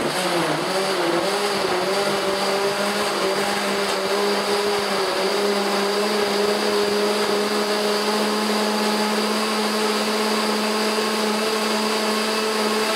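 KitchenAid countertop blender running on its highest setting, liquefy, blending a jar packed with kale and water. The motor's pitch wavers for the first few seconds while the leaves are being chopped, then holds steady once the mixture has turned to a smooth liquid.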